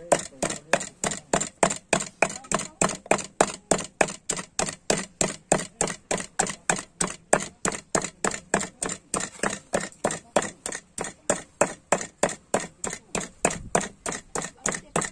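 Knife chopping on a cutting board in a steady, even rhythm, about three to four chops a second.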